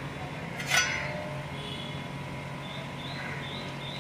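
A single sharp metallic clink about a second in, ringing briefly, over a steady low hum, as metal tools and parts are handled while draining a scooter's engine oil.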